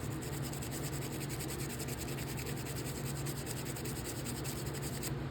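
Old nylon-bristle toothbrush scrubbing a folding knife's parts to work debris loose, in quick, even back-and-forth strokes about seven a second that stop just before the end.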